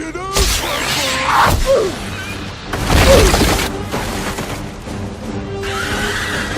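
Film-score music with two loud crashing impacts, one about half a second in and a bigger one around three seconds in.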